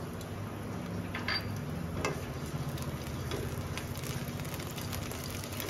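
Curry leaves and mustard seeds frying in hot oil in a kadhai: a soft steady sizzle with scattered pops and crackles, over a low hum.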